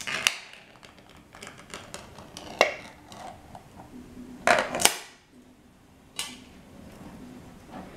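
Ring-pull lid of a tin of canned bread being torn open: sharp metallic clicks and crackles as the tab is levered and the lid peels around the rim. The loudest cracks come about two and a half seconds in and as a double crack around five seconds in, and there is a single clink about six seconds in as the metal lid is set down.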